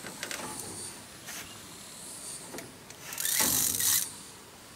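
Spinning fishing reel being cranked: a few light clicks, then a whirr lasting about a second near the end as line is wound in.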